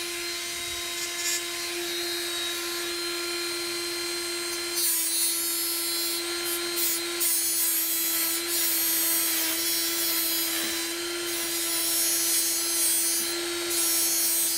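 High-speed rotary grinder with an abrasive bit running with a steady whine. From about five seconds in, a harsher grinding noise comes and goes over the whine as the bit sands the sharp, freshly cut edge of a steel Vespa 200cc crankshaft cheek to round it off.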